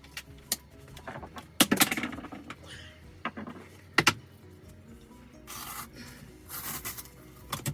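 Handling noise from pulling off a taped-in temporary window screen border: several sharp knocks and clicks, with two short scraping, rustling bursts near the end. Soft background music plays under it.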